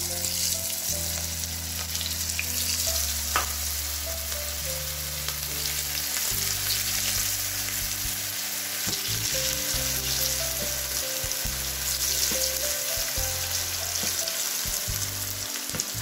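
Batter-coated cauliflower florets deep-frying in oil kept on high heat, a steady, dense sizzle as more pieces are dropped in. A single sharp click about three and a half seconds in.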